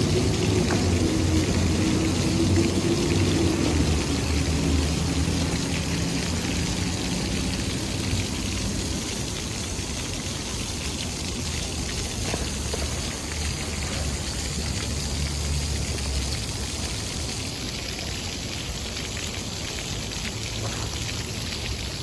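Ground-level plaza fountain: a row of small water jets splashing steadily back into a shallow basin, making an even, rain-like hiss. A low engine drone runs underneath and fades out about two-thirds of the way through.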